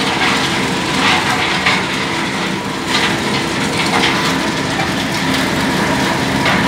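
Gypsum plant machinery running: a steady mechanical hum with continuous rattling and crunching, from the rotary kiln drum and the equipment that carries the calcined gypsum powder onward.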